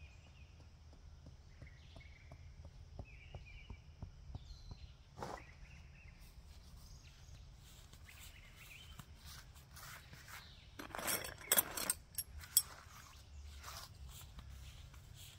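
A run of light, quick taps through the first four seconds, a mallet knocking in a tent stake, with birds chirping. About eleven seconds in comes the loudest sound, a short burst of close rustling and knocks.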